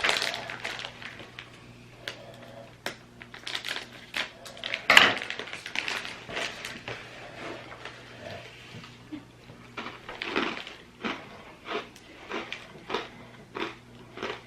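Crunchy corn-nut-like snacks being handled and chewed, with the packet crinkling: a run of irregular short crackles and clicks, the loudest about five seconds in.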